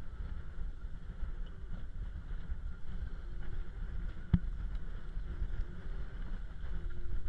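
Wind buffeting the microphone as a steady low rumble, with one sharp knock a little over four seconds in.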